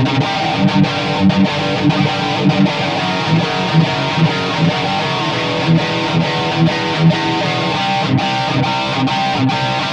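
Heavily distorted electric guitar riffing through a Line 6 Spider IV 15 amp on its high-gain Insane channel, with low chugging notes under sustained chords, heard direct from the amp's recording output.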